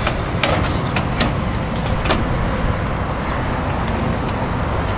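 Steady low rumble of machinery on a rooftop, with several sharp metallic clicks and knocks in the first two seconds as a sheet-metal access panel on an air-conditioning unit is handled.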